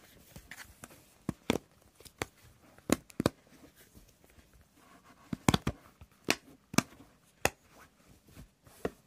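Simple Dimpl fidget toy's silicone bubbles being pressed, giving a dozen or so sharp, irregular popping clicks.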